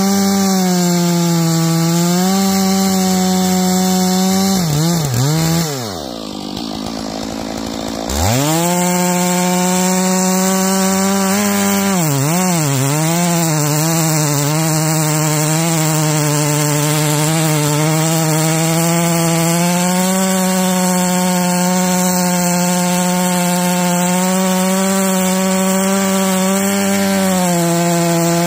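Stihl MS461 two-stroke chainsaw bucking green fir at full throttle, its pitch sagging as the chain loads in the wood. About six seconds in it drops to idle for a couple of seconds, then revs back up and carries on cutting.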